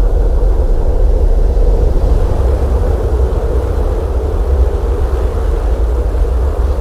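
Blizzard wind howling steadily: a deep, continuous rumble with a howling tone held on top.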